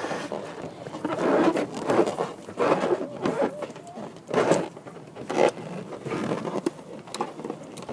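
Irregular rubbing and scraping as hands work a rubber balloon and a plastic bottle of Orbeez water beads, in uneven strokes, with a few louder ones about halfway through.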